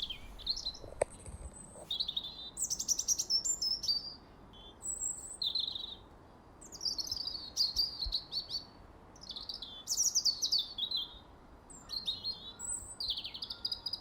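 Songbirds chirping: short high phrases, many sliding downward, repeating every second or two.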